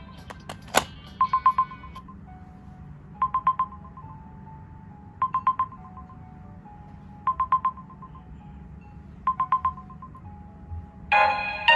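Phone timer alarm beeping in groups of four quick, high beeps, one group about every two seconds. A sharp click comes under a second in, and a busier, louder ringtone melody starts near the end.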